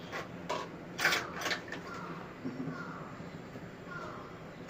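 A silicone spatula stirring caramel in a metal pot, with a few knocks and scrapes against the pot, the loudest about a second in.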